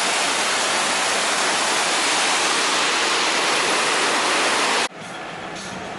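Large waterfall crashing down, a loud, steady rush of water that cuts off abruptly about five seconds in.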